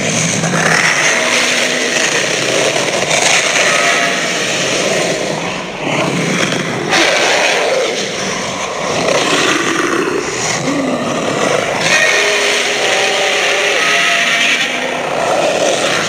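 Designed monster roar for the fictional dinosaur Arkosaurus: one long, harsh, continuous growling roar with short pitched cries breaking through it here and there.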